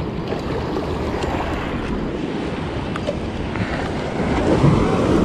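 Steady wind rumbling on the microphone, with sea surf washing in the background.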